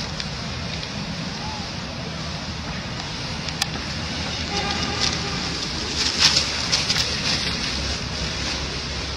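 Steady wind rumble on the microphone with outdoor background noise, broken by a few short sharp clicks about three and a half seconds, six seconds and seven seconds in.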